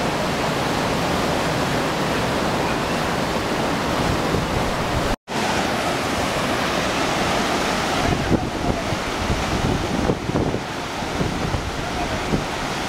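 Whitewater rapids of a mountain creek rushing steadily, with wind buffeting the microphone in the second half. The sound drops out for a moment about five seconds in.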